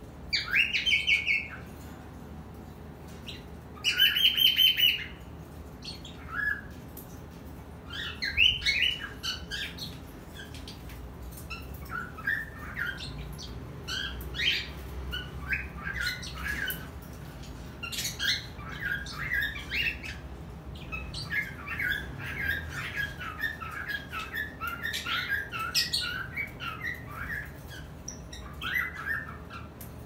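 Cockatiels and lovebirds calling: two loud, shrill calls in the first five seconds, then a steady run of quick chirps and chatter.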